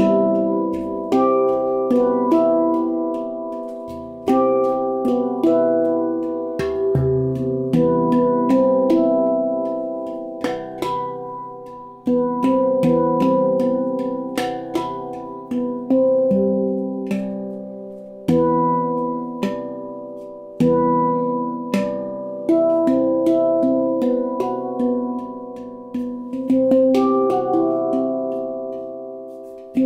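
Stainless-steel handpan in C Aegean tuning (Baopan) played with the fingers: single notes and short runs struck on the tone fields, each ringing on with a long sustain. The deep low-C ding sounds now and then beneath the higher notes.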